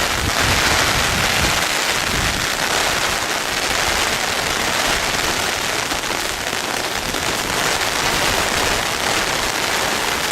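Steady, loud hiss of water, the sound of heavy rain or rushing floodwater, with uneven low rumbling in the first couple of seconds.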